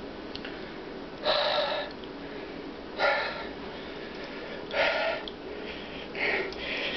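A man's forceful breaths, four short hard exhales about every one and a half seconds, as he strains to bend a steel wrench with his bare hands.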